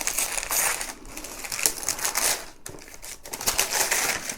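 Wrapping on a new multitool's packaging being torn open and unwrapped by hand: crinkling and tearing in bursts, loudest in the first second, around two seconds in and near the end.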